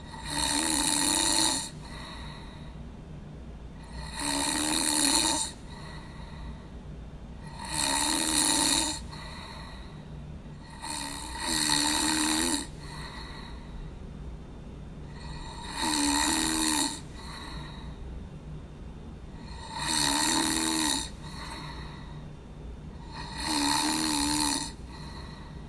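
A person snoring: seven snores about four seconds apart, each lasting about a second and a half, over a steady low hum.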